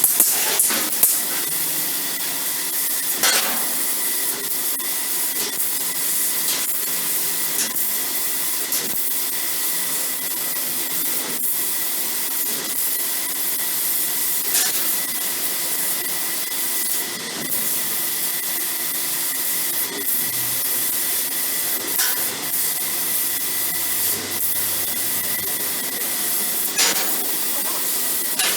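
CNC laser cutting machine running: a steady hiss with a steady high tone underneath and occasional short clicks.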